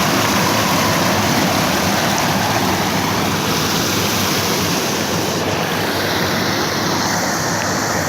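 Steady rushing of flowing water, a loud even wash with no breaks.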